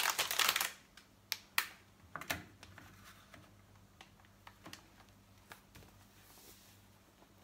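Spaghetti packet rustling and crinkling for the first moment, then a few scattered light clicks and taps over a faint steady low hum.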